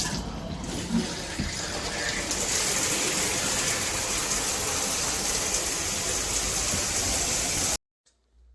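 Water spraying steadily from a large rain shower head, a loud even rush that stops abruptly near the end.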